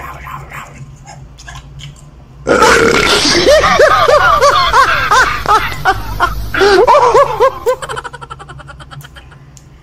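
Faint chewing on a fried fritter, then about two and a half seconds in a loud, burp-like vocal sound lasting about five seconds, its pitch bouncing quickly up and down.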